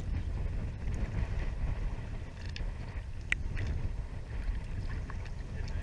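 Wind rumbling on the microphone aboard a small boat, with a few faint clicks and one sharp click about three seconds in.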